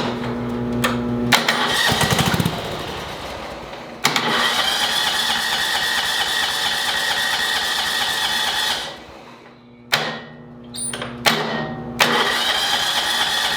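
John Deere Hydro 185 lawn tractor engine being started. It turns over and runs for several seconds, dies, then catches again in short bursts. It will not keep running because too little fuel is reaching it from the tank.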